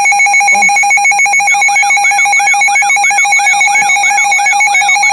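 Emergency Alert System attention signal: a loud, steady electronic alert tone. About a second and a half in, a warbling tone that rises and falls about twice a second joins it.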